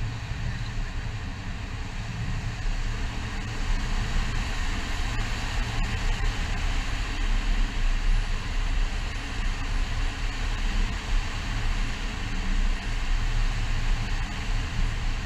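Wind rushing over the camera microphone in flight under a tandem paraglider, a steady low buffeting that grows louder a few seconds in as the glider banks steeply into a turn.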